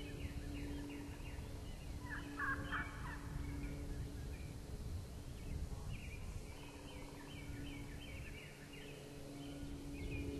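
Wild turkey tom gobbling once, a quick burst lasting about a second, starting about two seconds in.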